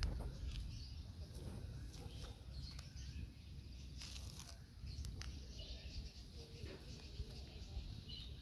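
Outdoor garden ambience: faint, scattered bird chirps over a low, steady rumble, with a few soft clicks.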